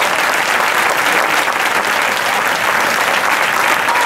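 An audience applauding, a dense, steady clapping from a large crowd.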